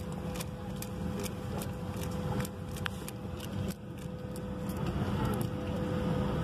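Steady low rumble and hum inside a jet airliner's cabin at the gate, with a steady whine and a scatter of light clicks; it grows somewhat louder in the second half.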